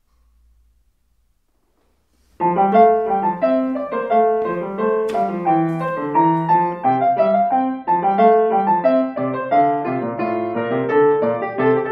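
Solo piano music starting suddenly about two and a half seconds in after near silence, with several notes sounding at once and the notes changing quickly.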